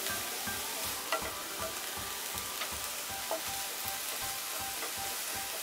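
Chopped onion, ginger and garlic sizzling steadily in hot oil in a kadai while being stirred, with regular soft scrapes and a few small clicks from the stirring.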